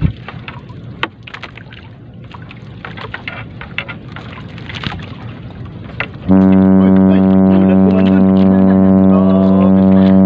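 Scattered clicks and rustles of a nylon three-ply net being hauled in over a boat's side, over a low rumble. About six seconds in, a loud, steady droning tone of added background music cuts in suddenly and holds, drowning everything else.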